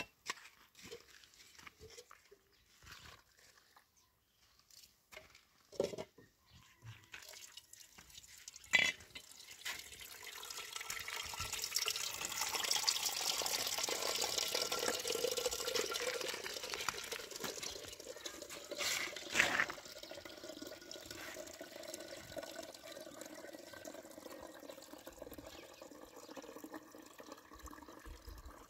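Water running, starting about eight seconds in, swelling and then easing off, with a few sharp knocks along the way; before it come scattered light clicks and knocks.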